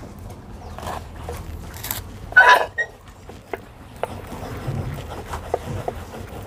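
Light taps and clicks of a wooden rolling pin rolling out paratha dough on a metal plate, over a steady low rumble. A brief louder sound comes about two and a half seconds in.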